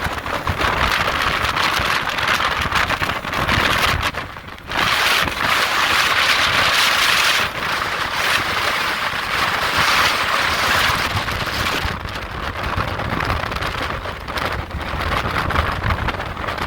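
Strong hurricane wind and heavy rain, with gusts buffeting the microphone. The wind eases briefly about four and a half seconds in, then comes back.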